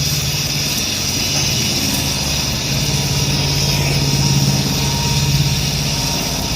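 A steady machine hum with a high hiss, swelling slightly in the middle.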